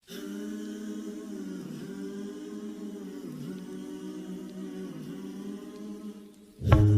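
Soft, sustained choir-like singing with no instruments, the voices holding long notes that slowly slide in pitch. Near the end, loud music with a deep bass comes in suddenly.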